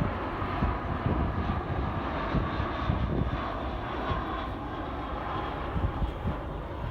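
Jet airliner's engines heard steadily as it comes in on approach to land, with wind gusting on the microphone.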